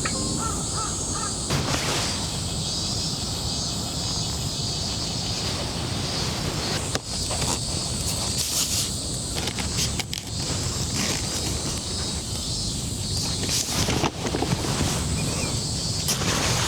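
Crows cawing several times over a steady outdoor background hiss.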